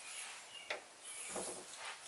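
Faint rustling with a light click or two as bike rack parts and their packaging are handled.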